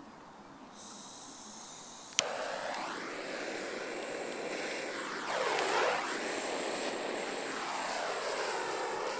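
Butane torch lighter: a faint hiss of gas, a sharp click as it lights about two seconds in, then the steady rushing of the flame jet, its tone sweeping up and down as the flame is moved, cut off with a click at the end. It is lighting the wingtip smoke cartridges of an RC plane.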